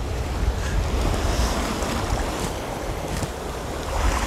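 Sea waves surging and washing over shoreline rocks, with wind buffeting the microphone.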